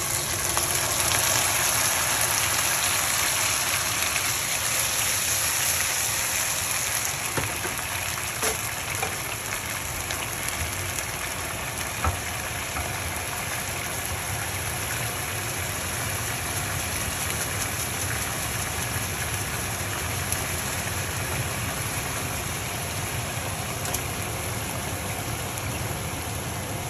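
Pasta water poured into a hot sauté pan of searing shrimp, garlic and sofrito: a loud hiss and sizzle for the first several seconds as the liquid hits the hot pan, settling into a steady simmering sizzle. A few faint clicks come through it.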